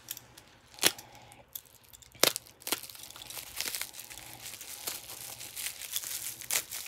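Utility knife slitting the yellow packing tape and bubble wrap on a mailing tube, then the bubble wrap crinkling and rustling as it is pulled open by hand. Two sharp clicks stand out, about one and two seconds in.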